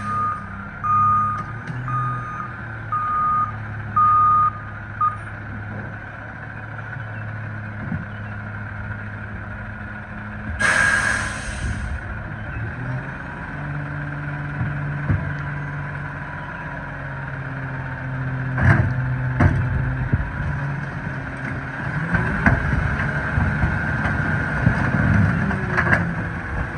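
Loadmaster rear-loader garbage truck: its reversing alarm beeps about once a second for the first five seconds, then a burst of air hiss comes about ten seconds in. The engine runs throughout, rising in pitch for stretches, and in the second half there are knocks and bangs of bulk items being thrown into the hopper.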